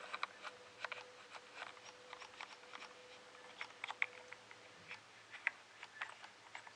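Keys on a Sinclair ZX Spectrum+ keyboard being pressed, giving irregular light clicks, several a second. The keyboard membrane is faulty, so only some of the presses register. A faint steady tone stops about four seconds in.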